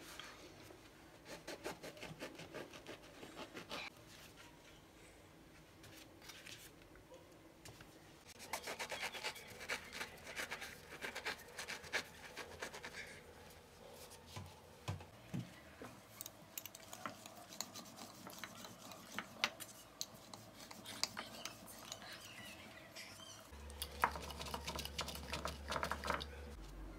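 A knife sawing through soft burger buns, a dry rasping scrape in several runs, with light knocks and rubbing of bread and a wooden press on a wooden table.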